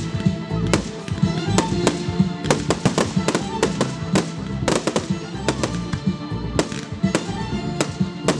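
Aerial fireworks shells bursting and crackling, a quick irregular run of sharp bangs and crackles, with music playing throughout.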